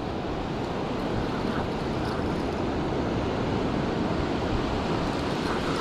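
Gulf surf washing on the beach, a steady rush of waves mixed with wind buffeting the microphone.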